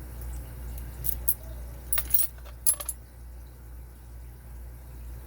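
Small metal lock parts and a tool clicking and clinking as they are handled, a few sharp clicks in two or three quick clusters between about one and three seconds in, over a steady low hum.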